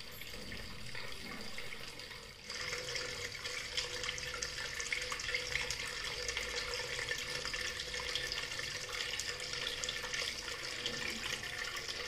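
Water from a small cement tabletop waterfall fountain pouring steadily from its spout into the basin, a continuous splashing trickle. It gets a little louder about two and a half seconds in.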